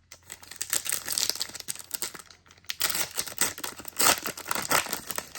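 Foil trading card pack wrapper crinkling and crackling as it is torn open and handled, loudest about four seconds in.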